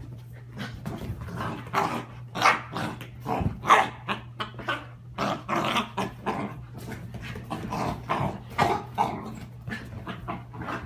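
A puppy growling in play in short, irregular bursts while wrestling a blanket on a couch, over a steady low hum.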